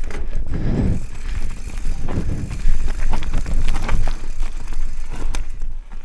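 Giant Trance mountain bike ridden down a rough enduro trail: tyres rumbling over dirt and rocks in uneven surges, with many sharp rattles and knocks from the bike.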